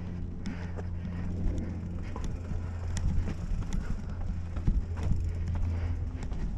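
Mountain bike rolling fast down a rocky dirt trail: tyre rumble over dirt and stones with frequent short clicks and knocks from the bike, under a steady low rush of wind on the helmet-mounted microphone.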